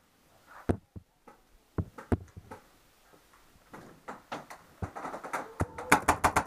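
Sharp pops of paintball markers firing inside a wooden bunker: a few scattered shots, then a rapid string of about eight in half a second near the end.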